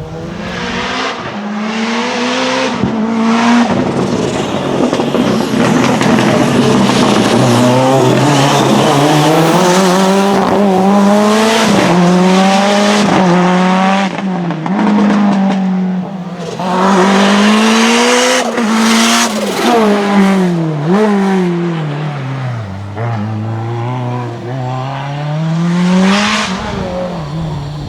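Race car engine revving hard, its pitch climbing and dropping again and again as it shifts gear and lifts between bends.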